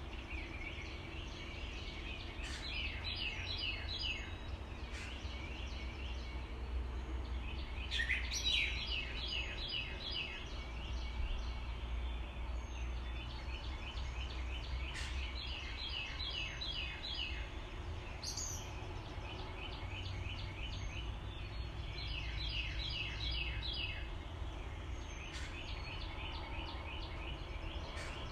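Water pouring over a low dam spillway and rushing through rocky shoals, a steady low rush, with a songbird singing short phrases of rapid repeated notes every few seconds.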